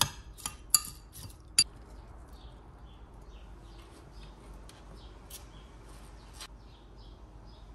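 Several sharp, ringing clinks of kitchenware in the first two seconds, as a breakfast bowl is put together, then faint bird chirping in the background.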